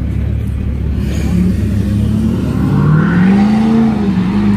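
Car engine running with a steady low rumble, revved up about halfway through: the pitch rises, holds briefly and eases back down.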